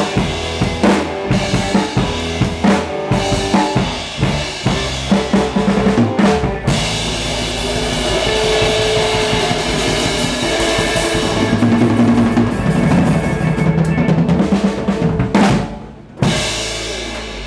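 Live band playing, with the drum kit loud and close; steady beats give way to fuller, sustained playing, then the music breaks off about fifteen seconds in and one last hit rings out.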